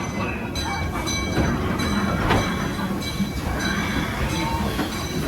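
A rail-mounted ride vehicle rolling along its track: a steady rumble of wheels on rails with thin, high squeals held over it.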